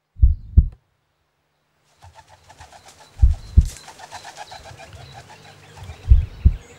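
New Zealand pigeon (kererū) giving low coos in pairs, three pairs about three seconds apart. Other birds sing faintly in the background from about two seconds in.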